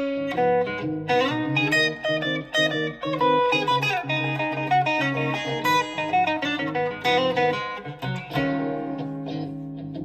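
Harley Benton Stratocaster-kit electric guitar played amplified, a blues lick of quick picked notes, ending on a chord held for the last second and a half or so.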